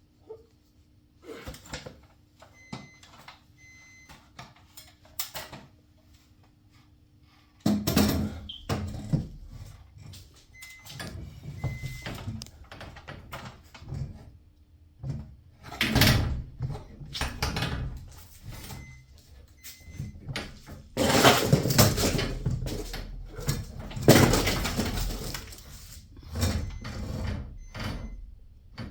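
Irregular knocks, clanks and scraping of tools and metal garage-door spring hardware being worked on by hand, busiest in the second half. A faint steady hum runs under the first several seconds and stops.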